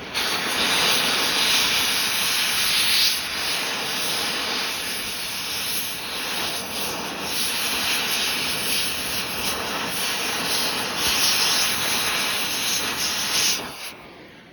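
Oxy-acetylene torch flame hissing loudly as it burns into the metal of a pistol, starting abruptly and wavering in strength before cutting off suddenly near the end.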